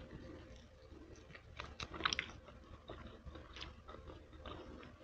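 A person chewing and biting meat off a barbecue chicken wing close to the microphone: quiet chewing with scattered small clicks, a few sharper ones about two seconds in.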